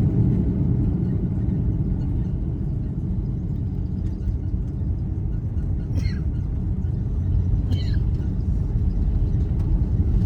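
Cabin rumble of an Airbus A330-323 rolling along the ground just after landing, a steady low rumble that eases slightly as the aircraft slows.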